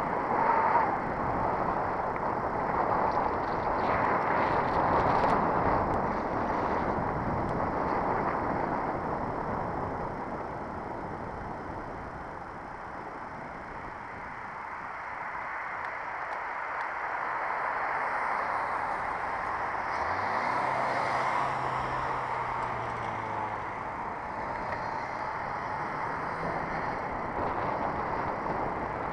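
Riding noise from a bicycle-mounted camera: a steady rush of wind and tyre noise on the road that swells and fades gently, with a low hum joining for a few seconds about two-thirds of the way through.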